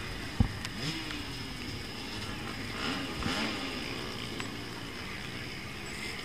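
Dirt bike engines revving in short blips over a steady high hiss, with one sharp knock about half a second in.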